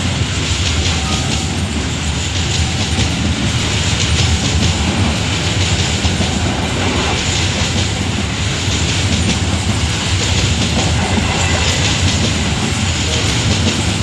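Long freight train of open-top wagons rolling past close by: a steady, loud rumble of steel wheels on the rails, with wheels clacking over the rail joints again and again.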